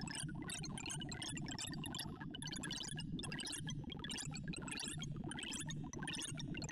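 Sorting-algorithm sonification from ArrayV's calmer sound set: a rapid stream of short synthesized tones whose pitches follow the array values that WikiSort compares and writes while merging 2,048 numbers. The tones come in quick runs that climb in pitch, over a low steady hum.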